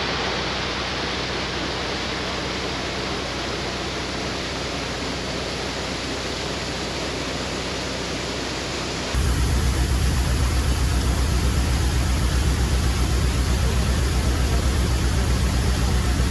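Steady rushing water, as through an open lock paddle, with a diesel engine idling faintly underneath; about nine seconds in it cuts abruptly to the narrowboat's diesel engine running louder with a fast, even chug.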